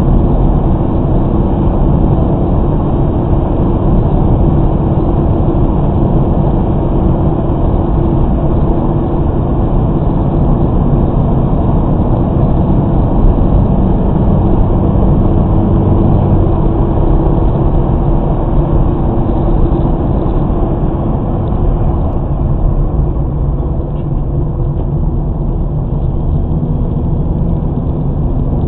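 Car driving at highway speed, heard from inside the cabin through a dashcam microphone: a steady engine and tyre rumble that eases a little in the last few seconds as the car slows.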